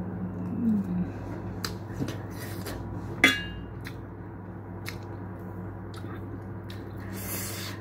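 Close-up eating sounds of a woman chewing a mouthful of shawarma: soft chewing with scattered small mouth clicks. About three seconds in, a metal fork clinks sharply once against the plate with a short ring, the loudest sound. A steady low hum runs underneath.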